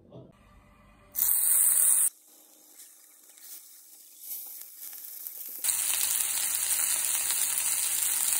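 Yakitori skewers of chicken and green onion sizzling in a hot skillet: a short burst of sizzling about a second in, then steady sizzling from a little past halfway.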